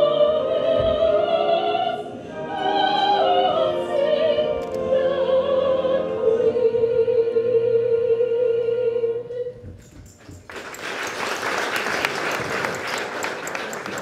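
A soprano singing in operatic style with vibrato, ending on a long held note about nine and a half seconds in. The audience then breaks into applause.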